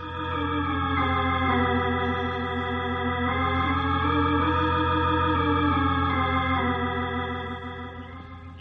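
Organ music bridge marking the passing of time between scenes: held chords over a steady bass note, the upper notes moving slowly in the middle, fading out near the end.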